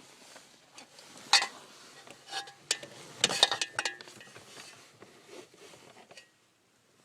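Scattered light clicks and clinks of small metal parts being handled in a car's steering column ignition mechanism, with a quick cluster of clicks about three to four seconds in.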